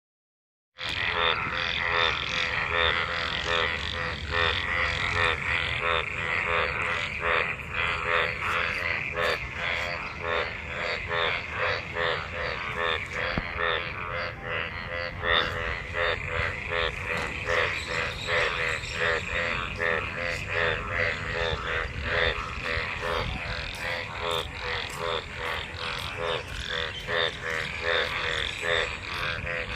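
Chorus of many frogs croaking in a dense, overlapping run of rapid pulsed calls. It starts abruptly about a second in. It is a breeding chorus of frogs gathered in monsoon rainwater.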